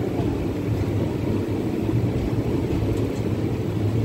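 Steady low rumble of an Indian Railways passenger coach running on the track, heard from its open doorway: wheels on the rails and the coach's running noise, with no distinct clicks or horn.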